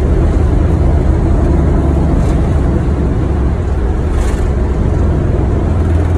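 Steady, loud low rumble in the cockpit of an Airbus A330 rolling along the runway: engine noise mixed with the rumble of the wheels.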